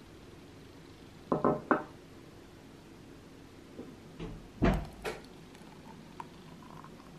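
Kitchenware knocking and clattering as it is handled and set down on a countertop: three quick knocks about a second and a half in, then a few more with the loudest near five seconds in.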